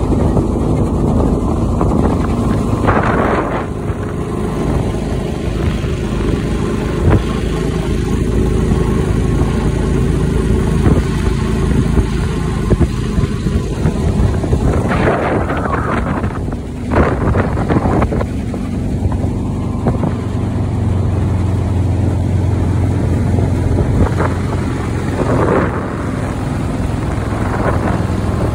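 Jon boat's 23 hp Vanguard-powered Backwater mud motor running steadily at speed under way, with a few short bursts of rushing noise over it.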